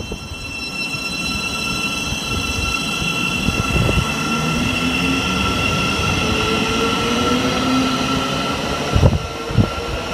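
Passing train with a rumble, several steady high-pitched whining tones and a slowly rising tone in the middle. It grows louder toward the middle and fades near the end.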